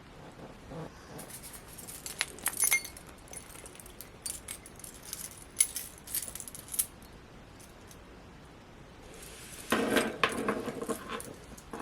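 Metal ring and chain of a Funko Pocket Pop! keychain jingling and clinking as it is handled, in scattered light clicks. About ten seconds in comes a louder, denser stretch of rattling.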